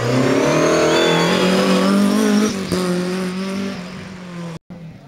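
BMW E30 rally car's engine at high revs as it comes past, the pitch climbing for about two and a half seconds, then dropping sharply and fading away. The sound cuts off abruptly near the end.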